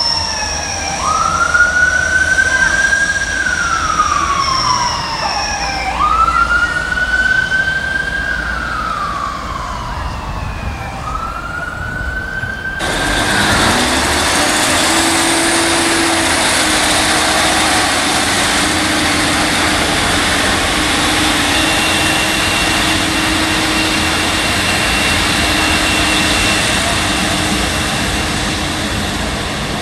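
An emergency vehicle's siren wailing, its pitch sliding slowly up and down about every five seconds. About thirteen seconds in it cuts off abruptly and gives way to the steady running of a GWR Class 150 Sprinter diesel multiple unit's engine as the train pulls away.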